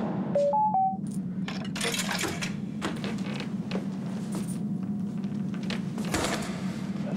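Three short electronic beeps, then echoing footsteps on a hard tiled floor and metallic clinks of coins going into a soda vending machine, over a steady low hum.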